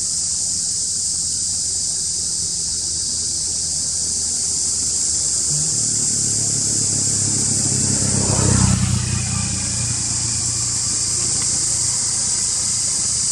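A motor vehicle's engine passing by, growing louder to a peak about eight or nine seconds in and then fading, over a steady high-pitched insect chorus.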